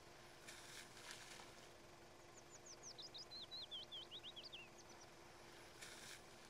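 A small bird singing a quick run of short, high, falling whistled notes for about two and a half seconds, over a quiet background with two brief bursts of hiss, one near the start and one near the end.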